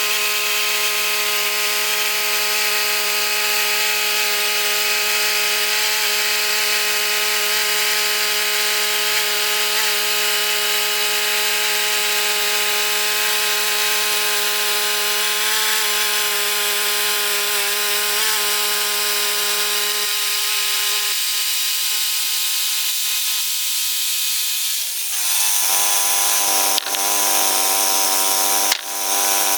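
Band sawmill running, its engine-driven band blade sawing through a white oak log with a steady cutting hiss over the engine's tone. About 25 seconds in the engine's pitch drops, and two sharp knocks follow near the end.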